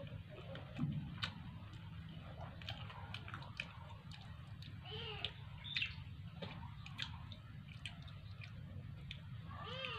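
Close-up chewing and biting of green mango slices, with many short wet clicks and crunches. A cat meows a few times, once around the middle and most clearly just before the end.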